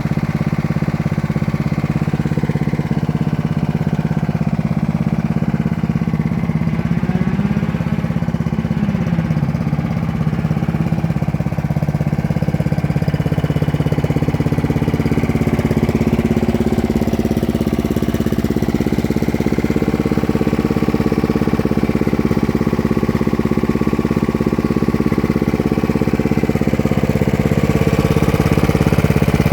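Small lawn mower engine running steadily, its pitch wavering briefly about a third of the way through and its level rising slightly in the second half.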